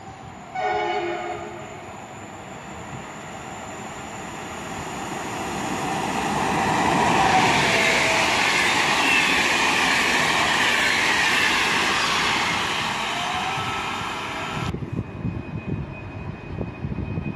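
A passenger train sounds a short horn blast about half a second in, then passes close at speed, its wheels and coaches making a rising rush that holds loud for several seconds. Near the end the sound cuts off abruptly to a quieter rumble as an EN76 electric multiple unit approaches.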